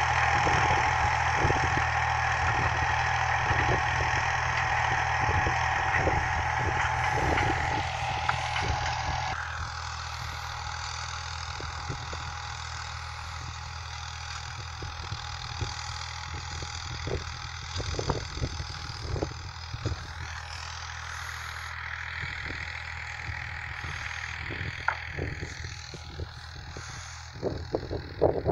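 Engine running steadily at a constant speed, a low hum with scattered knocks and rattles; the hum gets quieter about nine seconds in.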